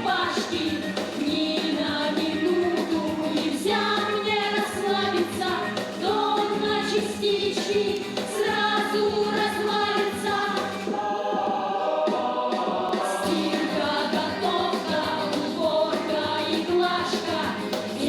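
Song from a stage musical: a group of voices singing together over instrumental accompaniment.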